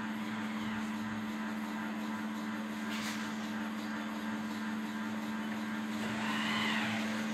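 Steady low hum, with a faint click about three seconds in and a brief faint tone that rises and falls near the end.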